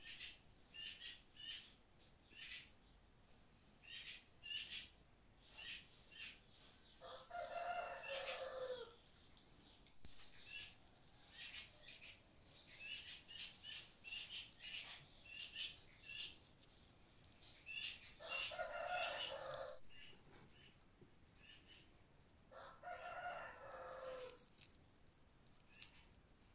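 A rooster crowing three times, each crow lasting about two seconds, among frequent short, high bird chirps.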